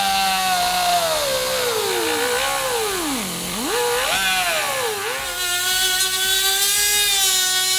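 Pneumatic cut-off wheel whining as it cuts through a chrome-plated truck grille. Its pitch sags as the wheel bogs down in the cut, falling deepest about three seconds in and again briefly a little later, then it holds steady at a lower pitch.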